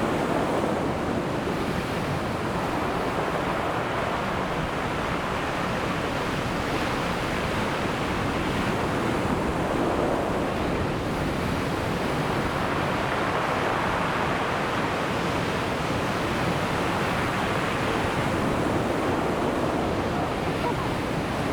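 Ocean surf washing continuously onto the shore, a steady roar of breaking waves that swells gently and eases, with some wind on the microphone.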